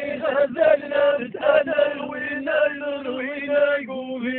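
Male chanting of Amazigh sung poetry: a repeated refrain with steady held notes under the moving melody.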